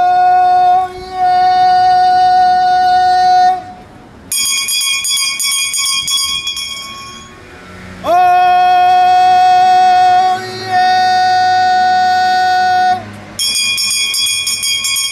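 A town crier's long, sung cries of "Oyez", alternating with a brass handbell being rung. One held cry ends a few seconds in, the bell rings for about three seconds, a second cry is held from about eight seconds in, and the bell rings again near the end.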